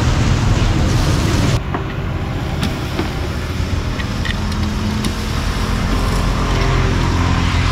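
Steady low drone of a motor vehicle's engine and road traffic close by, with a few light metallic clicks of tongs turning pork on a grill.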